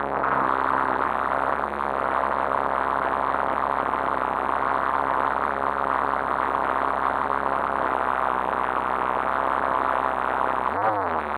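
Steady muffled running of an RC car's engine at idle, heard through a fully sealed camera housing: a dull hiss with a constant low hum.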